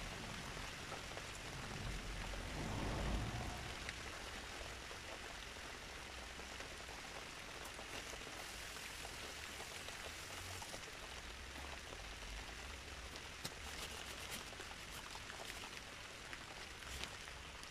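Steady rain falling, an even hiss with scattered drops ticking close by, more of them near the end. A brief low rumble comes about two to three seconds in.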